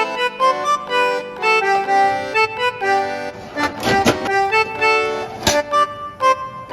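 Instrumental background music with a lively melody of short notes. Brief sharp noises cut through it about four seconds in and again about five and a half seconds in.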